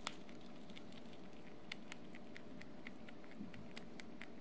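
A baby mini dwarf rabbit chewing dry hay and dried vegetables: faint, irregular crunching clicks, a few a second.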